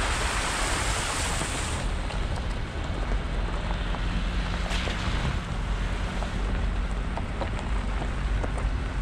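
Wind rushing over the microphone with the rumble of a vehicle driving, a steady noise that is brighter for the first couple of seconds.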